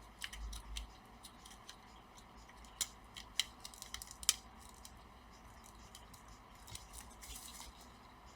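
Small plastic clicks and taps of laptop internal connectors and cables being handled and pressed into place, scattered and faint, with a short scratchy rustle near the end.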